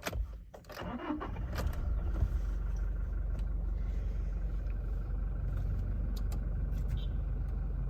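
Toyota Innova Crysta's 2.4-litre four-cylinder turbodiesel starting up and settling within about two seconds into a steady idle, heard from inside the cabin. The diesel rumble is fairly subdued in the cabin: a little engine noise comes through, but less than expected of a diesel.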